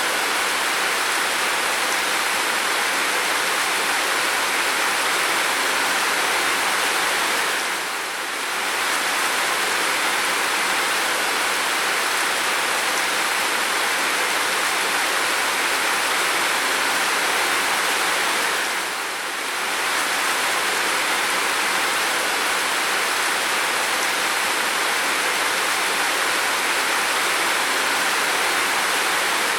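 Steady pounding rain, an even hiss that dips briefly in loudness twice, about eleven seconds apart.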